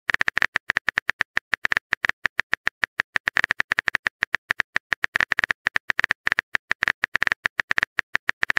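Phone-keyboard typing sound effect: a rapid run of short, sharp key clicks, several a second, as a chat message is typed out.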